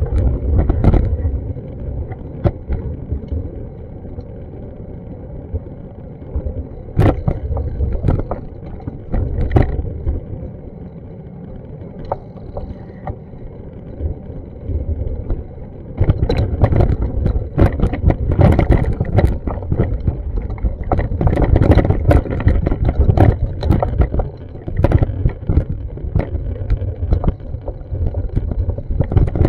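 Street ambience picked up by a handheld action camera: a steady low rumble with frequent knocks and clicks, quieter from about four seconds in and busier again from about sixteen seconds.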